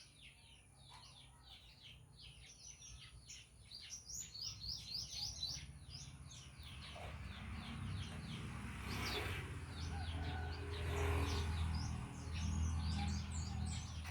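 Many small birds chirping rapidly and continuously in a dawn chorus, the chirps growing louder. About halfway through, a low rumble comes up underneath and swells twice.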